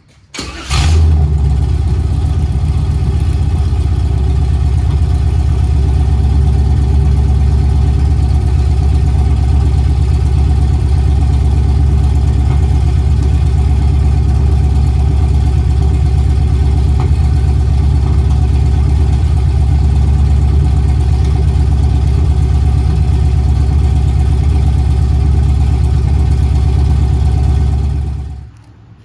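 1963 Chevy II Nova SS's 355 small-block V8 with aluminum heads and long-tube headers, breathing through dual Black Widow Neighbor Hater mufflers that dump just ahead of the rear axle. It starts up about a second in and then idles steadily with a loud, deep exhaust note. The sound stops abruptly near the end.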